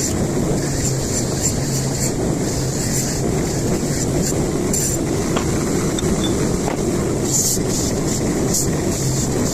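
Steady, loud mechanical running noise with a low hum that comes and goes, and a few faint clicks.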